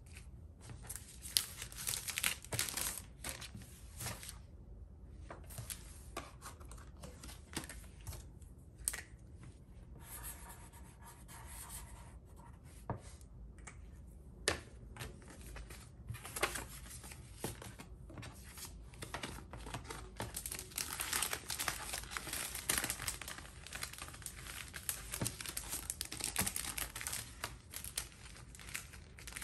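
Clear plastic sleeves crinkling and rustling, along with paper cards being handled and shuffled. The rustles are short and irregular, with a few sharp ticks, and grow busier in the second half.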